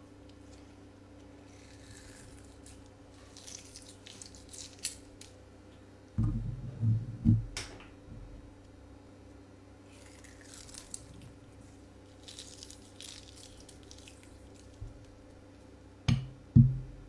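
Soft, scattered eating sounds of someone eating a plate of curry and rice, with low thumps about six seconds in and again near the end, over a steady faint hum.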